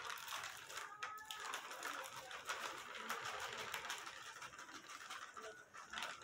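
Plastic bag of wheat flour crinkling as it is handled and tipped to pour flour into a measuring cup, a fast run of faint crackles.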